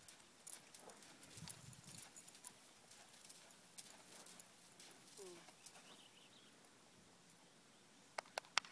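Faint, irregular hoofbeats of a Quarter Horse walking on a sand arena, with two sharp clicks about half a second apart near the end.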